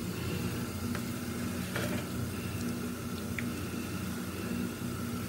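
Hands rubbing raw plantain slices in a wet chilli-turmeric masala in a steel bowl: faint squishing with a few light clicks, over a steady low hum.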